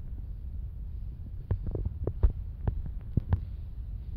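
Irregular footsteps and scuffs on a bare concrete floor over a low, steady rumble.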